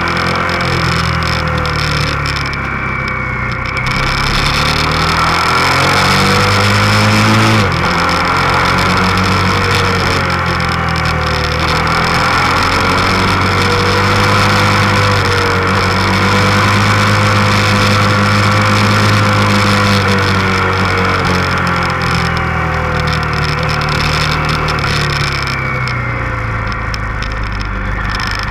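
Motorcycle engine under way, recorded onboard over a steady rush of wind. The revs climb and then drop sharply at a gear change about seven and a half seconds in, and afterwards rise and fall slowly through the bends.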